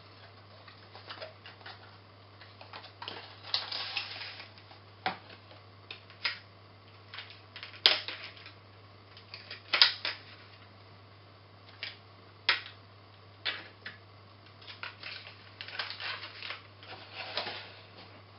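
Hands unpacking a model railway wagon from a cardboard box and a clear plastic display case: irregular clicks, taps and rustles of plastic and card, with two sharper knocks around the middle, over a faint steady low hum.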